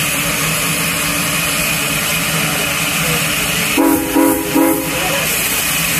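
Whistle of steam locomotive Alco No. 18 sounding a few short blasts about four seconds in, over the steady running noise of the moving train.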